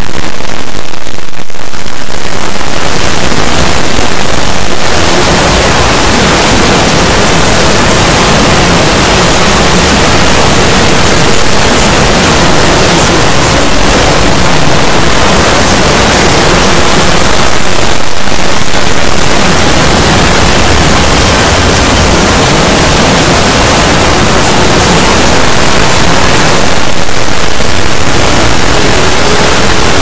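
Loud, harsh static-like noise filling every pitch from low to high, as from heavily distorted, overdriven edited audio, thinning briefly near the start and around two-thirds and nine-tenths of the way through.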